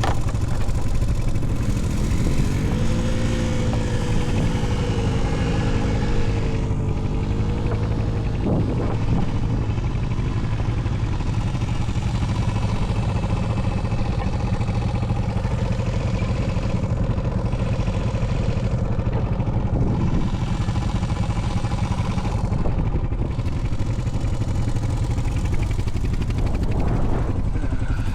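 Honda Foreman 520 ATV's single-cylinder engine running steadily under load while towing another ATV, its revs wavering up and down a few seconds in.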